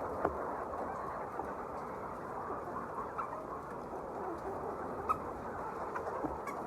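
A flock of chickens clucking and chattering together in a steady din, with a couple of sharp clicks or knocks.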